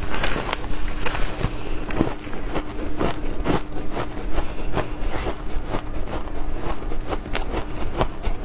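Crunching of frozen shaved ice being bitten and chewed: a dense, irregular run of crisp crunches. A faint steady hum runs underneath.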